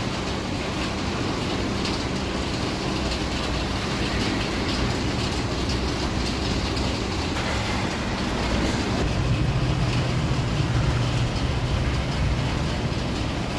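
A vehicle running with a steady rumble and road or track noise, the low rumble growing louder about nine seconds in.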